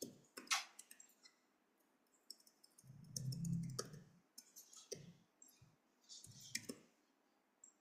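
Faint, scattered clicks of a computer mouse, with a brief low hum about three seconds in.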